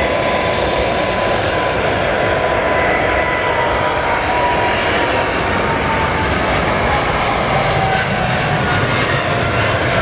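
Boeing 777-300's twin jet engines at takeoff power as it accelerates down the runway toward lift-off: a steady loud roar with a high whine that drops a little in pitch in the second half.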